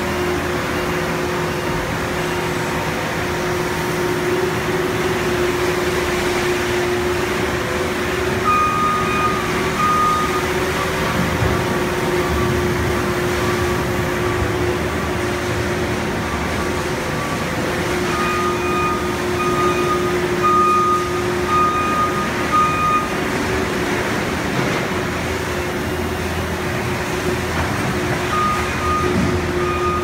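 Steady industrial hum of a paper baler's floor conveyor and a skid-steer loader's engine working the paper pile. Runs of short high backup-alarm beeps from the reversing loader come about a third of the way in, through the middle and again near the end.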